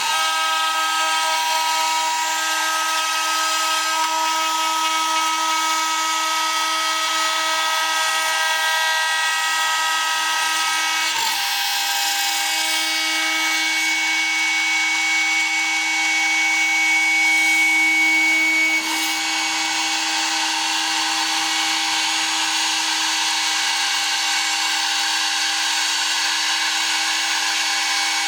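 CNC router spindle running and milling 2 mm aluminium sheet: a steady machine whine with a cutting sound whose overtones keep shifting. The sound changes briefly about 11 and 19 seconds in.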